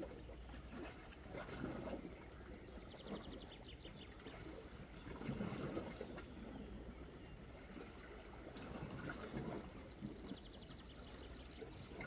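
Gentle sea water washing against the rocky shore in soft swells every few seconds. A short, rapid trill comes twice, about three seconds in and near the end.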